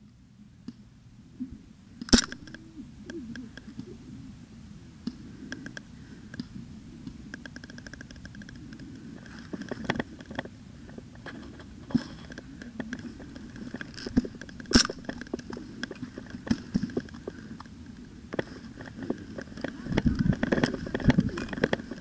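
Airsoft pistol firing two sharp single shots, about two seconds in and again near fifteen seconds, over steady rustling of clothing and gear and scattered small clicks of other shots around the field. Near the end the rustling grows louder with thumps as the player moves off.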